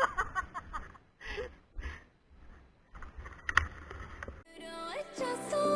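Scattered voices talking in short bursts, then music starts about four and a half seconds in.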